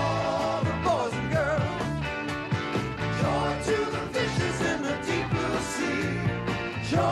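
Band music: a wavering melody line over sustained bass notes, with regular light percussion strikes.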